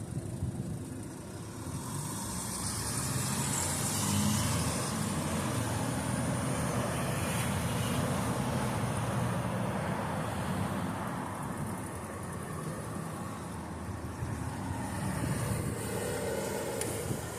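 Road traffic: motor vehicles driving past, swelling a couple of seconds in and easing off in the second half, with a smaller rise near the end.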